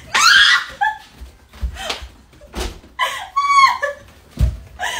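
Two young women shrieking, yelling and laughing as they wrestle, with three sharp thumps of bodies and hands knocking together in between.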